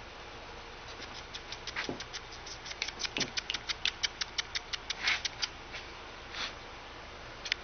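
A baby Astrex rabbit crunching a piece of raw carrot: a quick run of crisp little crunches, about five or six a second, that stops about two thirds of the way through, with a few more crunches near the end.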